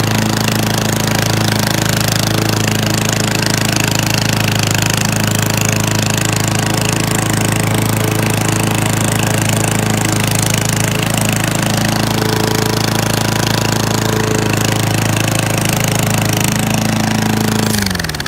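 Homemade rat-rod lawnmower's gasoline engine running at a steady speed, then shut off near the end, its pitch falling as it winds down.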